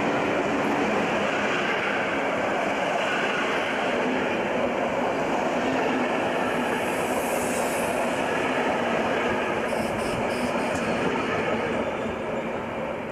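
Passenger coaches of a diesel-hauled train rolling past on the rails as it departs: a loud, steady rumble of wheels on track. It fades near the end as the train pulls away.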